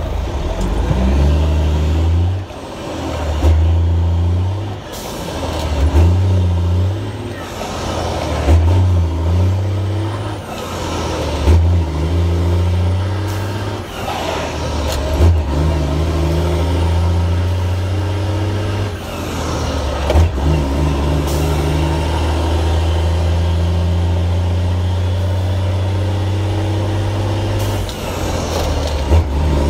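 Straight-piped Detroit Diesel Series 60 12.7-litre inline-six in a truck, heard from inside the cab. Its revs climb and drop back several times in the first half, as it is shifted up through the gears, then it runs steadily at a constant speed.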